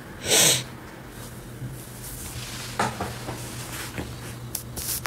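A loud sniff close to the microphone about half a second in, then a few small clicks and knocks over a steady low hum.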